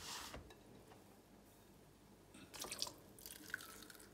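Wet pike roe and rinse water poured into a fine metal mesh sieve over a plastic bowl: faint splashing and trickling that starts about two and a half seconds in.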